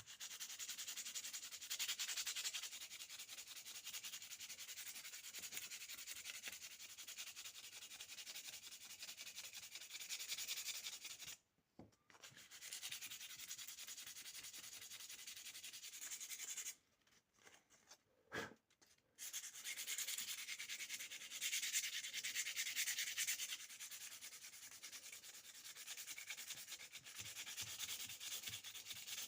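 180-grit sandpaper rubbed by hand over a rusted steel pocket-knife blade in quick back-and-forth strokes, taking off the rust. The sanding stops briefly twice, about 11 seconds in and again from about 17 to 19 seconds, with a single click during the second pause.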